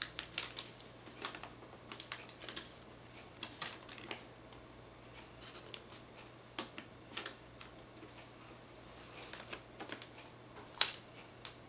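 Scattered clicks and rustles of an iPad and its charging cable being handled, irregularly spaced, with one sharper click near the end.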